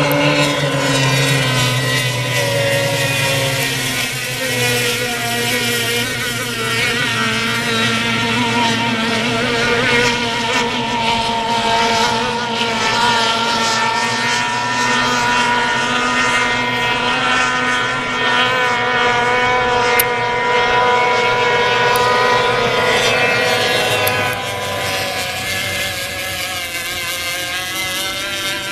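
Racing outboard hydroplane engines running flat out, a steady engine whine whose pitch drifts slowly up and down.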